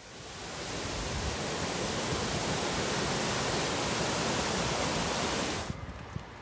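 Mountain stream rushing down a rocky cascade, a steady hiss of falling water that fades in at the start. Near the end it cuts off abruptly, giving way to quieter wind and road noise.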